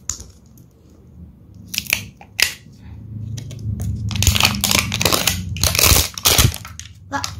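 Plastic wrapper being peeled and torn off an LOL Surprise Lils toy ball, crinkling and crackling. There are a few short crackles about two seconds in, then a dense run of crinkling from about three seconds in until shortly before the end.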